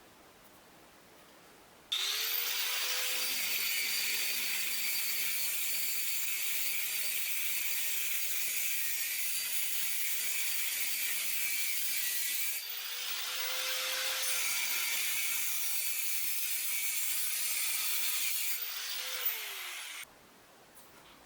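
Angle grinder starting about two seconds in and running under load with a loud, high, rasping grinding noise. The motor briefly slows and picks up again about halfway, then winds down and stops shortly before the end.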